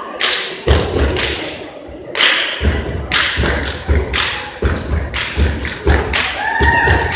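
Loud, uneven thumps and sharp hits, a few a second, making the beat of a dance group's routine.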